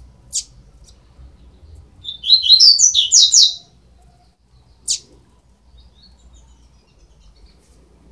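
Young double-collared seedeaters calling: a sharp high call, then about two seconds in a loud run of rapid chirps lasting about a second and a half, and another sharp call about five seconds in.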